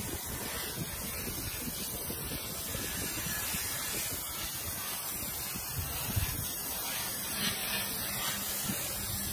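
CNC laser cutting head cutting through sheet steel, a steady hiss of assist gas jetting from the nozzle into the cut.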